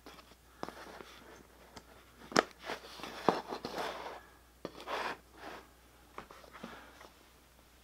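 A LiPo battery being plugged into a model-airplane power harness: a few sharp plastic clicks from the connector and the battery, with short rustles of the wire leads being handled.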